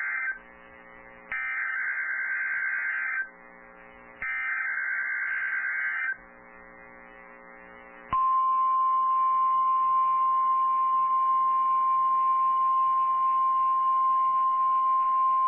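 NOAA Weather Radio emergency alert: the tail of one SAME header data burst and then two more, harsh buzzing warbles about two seconds long with a faint hum in the short gaps between them. About eight seconds in, the steady single-pitch 1050 Hz Warning Alarm Tone starts and holds, announcing a high wind warning.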